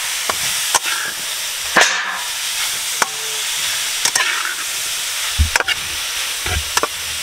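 Grated carrots frying in ghee in a steel pan, a steady sizzle, with a metal spatula stirring them and clicking against the pan again and again.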